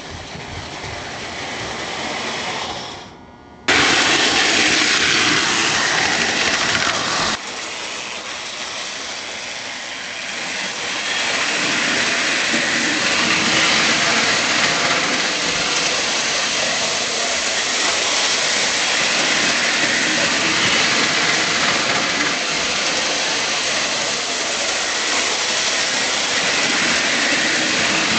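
Lionel model train running on its track, a steady rolling noise of motor and wheels. The level jumps up sharply near four seconds in, drops just after seven seconds and rises again around eleven seconds.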